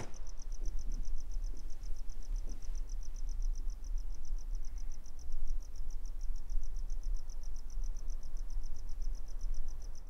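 Crickets chirping in a rapid, even pulse over a steady low rumble.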